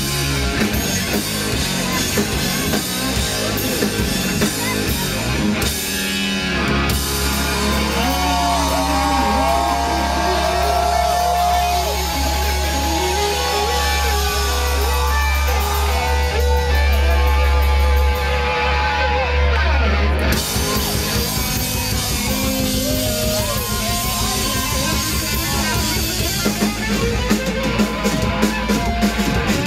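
Hard-rock band playing live in a small club, heard from the crowd: distorted electric guitars, bass and drum kit. From about 7 seconds in to about 20 seconds a low bass note is held under long, bending high notes, then the band drops back into the driving rhythm with heavy drum hits near the end.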